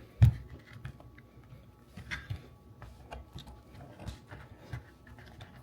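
Scattered clicks and knocks of steering wheel parts being handled and set down, with one sharp knock about a quarter second in and a few lighter taps after.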